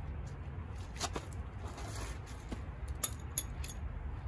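A few light clicks and two small metallic clinks about three seconds in, as small parts are handled, over a steady low background rumble.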